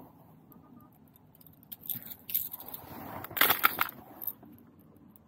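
Fishing tackle being handled while a lure is changed: small clicks, scrapes and rattles, with a burst of sharp clicks about three and a half seconds in.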